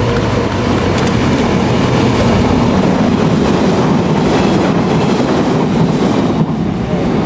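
A train of empty flat wagons rolls past close by: steady noise of steel wheels on the rails, with a few clacks as the wheels cross rail joints.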